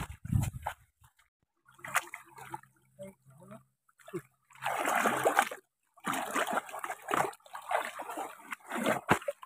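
Water splashing and sloshing in irregular bursts as someone wades through deep floodwater. The longest bursts come about halfway through and near the end.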